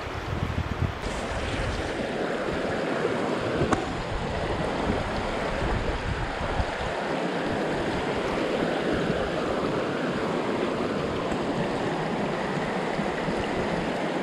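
Shallow river running fast over rocks: a steady rush of water.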